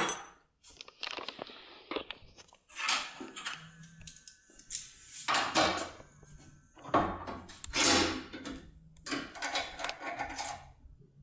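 Handling noise from the lock cylinders and picking tools: irregular clicks, knocks and rustles as metal parts are picked up, moved and set down, with a faint low hum under them.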